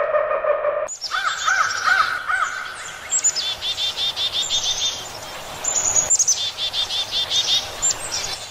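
Rainforest birds chirping, with runs of quick repeated chirps from several birds at once. During the first second a steady held tone sounds, cutting off abruptly as the birdsong begins.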